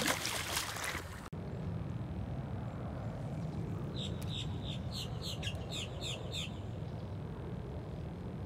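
A splash as a released peacock bass drops back into the water, over a steady low background rumble. About four seconds in, a bird calls with a quick run of about nine short, falling chirps.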